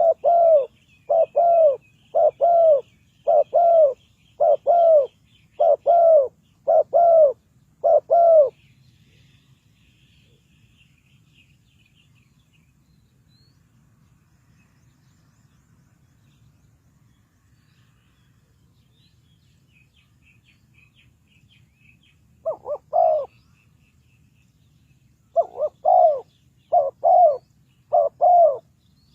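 Spotted dove cooing: a steady run of low, doubled coo notes about once a second, then a long pause, then a few more coos near the end. Faint high chirps from small birds carry on underneath.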